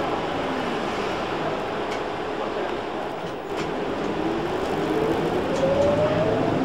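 Electric traction motor of a trolleybus, heard from inside the bus, whining as the bus picks up speed. The whine rises steadily in pitch from about four seconds in, over a steady hiss from the wet road.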